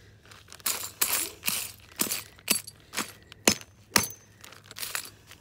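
Claw hammer striking broken red glass inside a plastic zip-top bag on a concrete paver: a steady series of sharp cracks and clinks, about two strikes a second, breaking the shards smaller.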